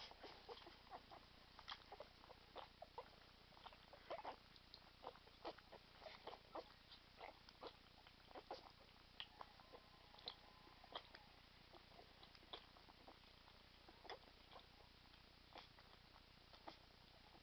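English bull terrier puppies eating wet kibble: faint, irregular smacking and lapping clicks, at times several a second.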